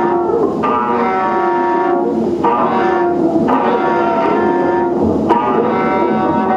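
Experimental electronic music played live on tabletop electronics and effects units: layered sustained, distorted tones over a wavering lower drone, the upper tones breaking off and jumping to new pitches every second or two.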